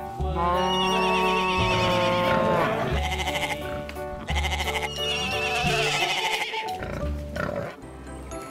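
Background music with two farm-animal calls laid over it, each with a wavering pitch: one lasting about two seconds from the start, and a shorter one near the middle.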